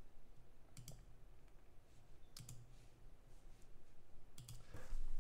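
A few scattered light clicks and soft taps, in small clusters spaced a second or two apart, over faint room hiss.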